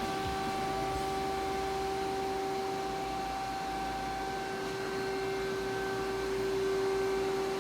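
Steady machine hum from a powered CNC lathe, with an even held tone over a low rumble.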